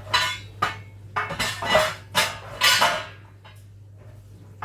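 Metal baking tins and trays clattering and knocking together as they are lifted out and stacked, several sharp clanks over the first three seconds, then it goes quiet apart from a low steady hum.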